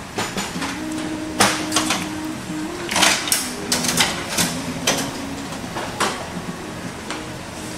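Irregular sharp clicks and knocks of hard parts being handled, clustered a second and a half in and again three to four seconds in, over a low tone that steps between pitches.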